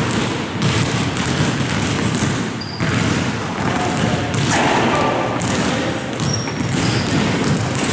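Several basketballs bouncing on a hardwood gym floor, their thuds overlapping in a steady clatter that echoes around the large hall.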